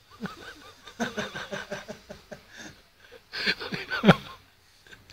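People snickering and laughing in quick, short repeated bursts, with a louder burst of laughter about four seconds in.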